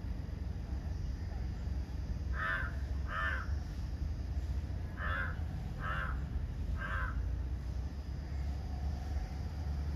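A bird calling five times in short calls: a pair about two and a half seconds in, then three more a little under a second apart, over a steady low rumble.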